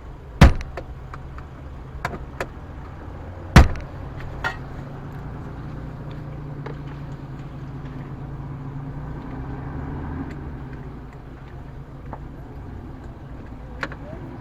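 Steady low rumble of a running vehicle, with two loud sharp knocks about three seconds apart and a few lighter clicks.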